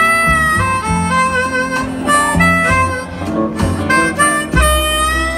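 Harmonica playing a solo line of long held notes over live band backing of guitar and bass.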